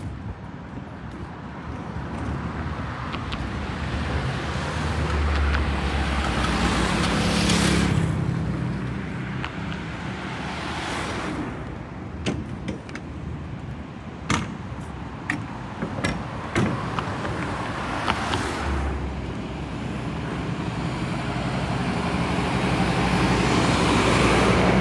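Road traffic: cars driving past one after another, each pass swelling and fading, over a steady engine rumble. A run of sharp taps comes in the middle, and a heavier engine, a city bus, builds up near the end.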